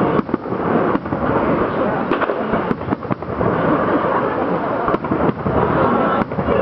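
Fireworks going off in quick succession: a dense crackle broken by many sharp bangs and rumbling booms.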